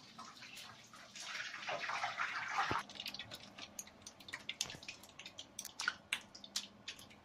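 Hot frying oil in a small pan crackling and popping irregularly, with a hiss in the first half and a single knock about a third of the way in.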